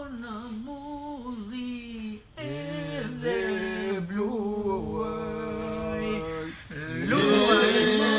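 Men singing unaccompanied in parts, an Albanian folk-style group song. A single lead voice sings alone, a second voice joins a couple of seconds in, and about seven seconds in the whole group comes in louder over a steady held drone.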